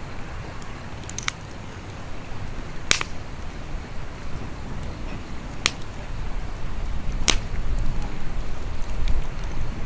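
Wood campfire crackling, with four sharp pops and some smaller ticks spread through, over a steady low rumble that grows stronger about six seconds in.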